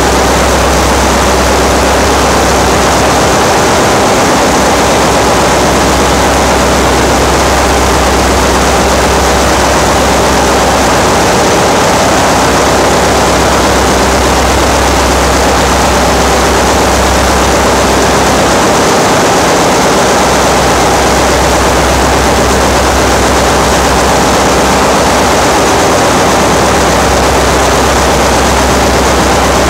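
Loud, steady machinery din of a ship's engine room: running engines and auxiliary machinery make a constant dense noise over a deep low hum.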